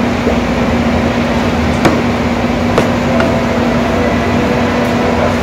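Steady hum of a restaurant's floor-standing air conditioner, with one unchanging low tone. Two light knocks come about two and three seconds in, as a glass of makgeolli is set down on the table.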